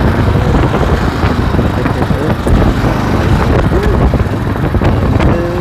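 Steady wind rush and road noise while riding, heard through a Marshall Mode wired earphone's inline microphone inside a helmet, with a voice faintly breaking through a couple of times.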